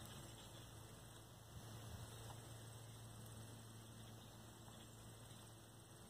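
Near silence: a faint steady low hum under light hiss.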